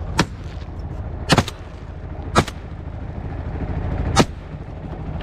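12-bore shotgun shots over water: four sharp reports spread over about four seconds, the second closely doubled. A steady low rumble runs underneath.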